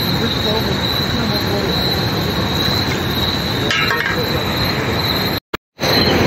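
Insects keeping up a steady high-pitched drone over a loud, even hiss. The sound cuts out for a moment near the end.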